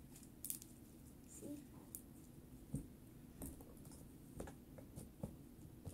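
Faint, scattered small clicks and crackles of slime being handled, pulled from a plastic bag and set down on a board.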